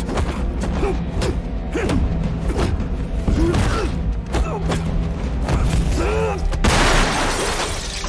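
Martial-arts film fight soundtrack: a quick run of punch and block impacts with short grunts from the fighters over steady background music. About two-thirds of the way in, a loud crash of breaking glass as a body smashes through a glass pane.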